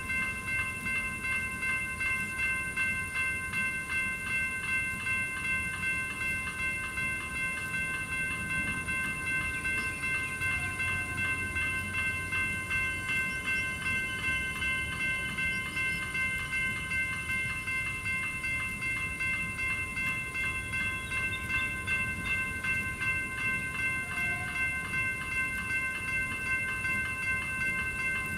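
General Signals electronic level-crossing bells (e-bells) ringing in rapid, even strokes with a steady metallic ring: the crossing is activated, warning that a train is coming.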